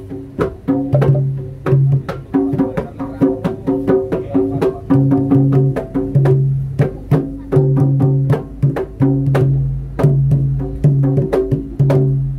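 Javanese jaranan-style gamelan music: quick, sharp drum strokes over held, pitched gong-like tones that change in a repeating pattern.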